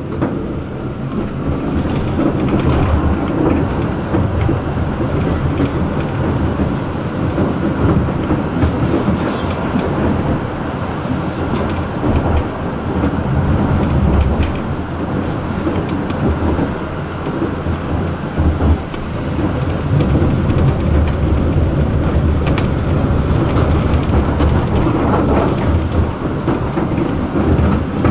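Tram running along the track, heard from inside the passenger cabin: a steady rumble of steel wheels on rails, with occasional clacks and knocks from the track.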